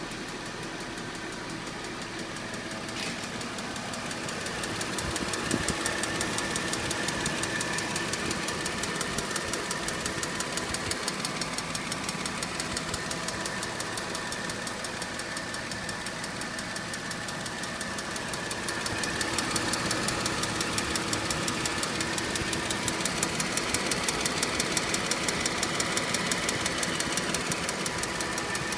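Mercedes-Benz C230 engine running with a fast, even ticking over it, getting somewhat louder about four seconds in and again near twenty seconds. The owner reports no check-engine light or misfire with this tick.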